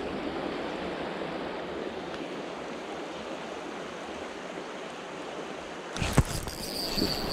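River water rushing steadily over a shallow riffle. About six seconds in, a sudden knock and a low wind rumble on the microphone, followed by a thin, steady high whine.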